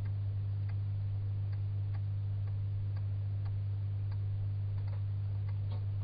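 A steady low electrical hum, with faint, irregular soft clicks about once or twice a second from a bearded dragon's jaws chewing clover.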